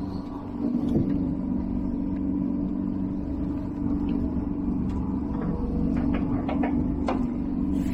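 Fishing boat's engine running steadily with a low rumble, with a few light clicks about two-thirds of the way through.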